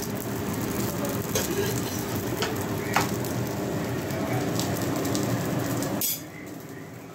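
Cabbage paratha frying in oil in a pan on a gas stove: steady sizzling over a low rumble, with a few light clicks. The sound drops away abruptly about six seconds in.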